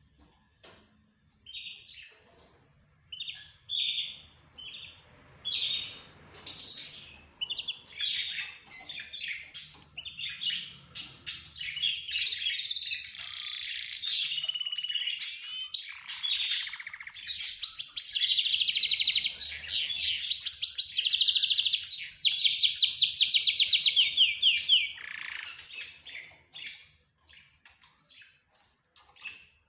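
A mix of cage birds (budgerigars, lovebirds, zebra finches and a canary) chirping in short separate calls, then building into a long, loud run of fast trilling song that breaks off about four-fifths of the way through into scattered chirps.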